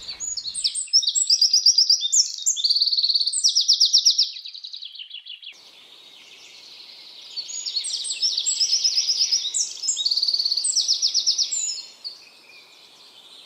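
A songbird singing in two long bouts of rapid trills and chirps, with a short pause between them.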